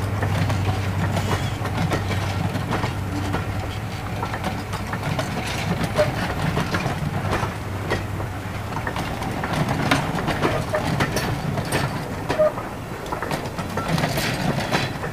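Rake of British Rail Mk1 passenger coaches rolling past, the wheels clicking and knocking irregularly over the rail joints. A low drone fades away over the first few seconds.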